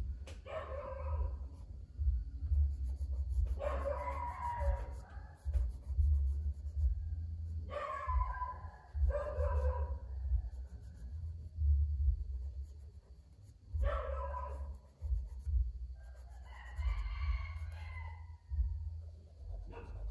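An animal calling again and again: about six drawn-out, wavering cries, each a second or so long, spaced three to four seconds apart, over a steady low rumble.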